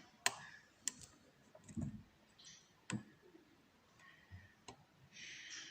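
A lock pick working the pins of a pin-tumbler challenge lock: four sharp, irregularly spaced metallic clicks, with a soft bump about two seconds in.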